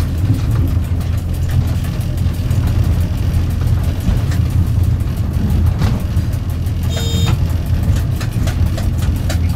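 Diesel train's engine running steadily as it pulls away from a station, heard from the driver's cab, with scattered clicks of the wheels over rail joints and points. A brief beep about seven seconds in.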